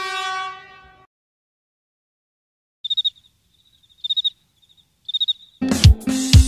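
Cricket chirping in three short bursts about a second apart, after a held pitched tone fades out in the first second. Music with a drum kit starts near the end.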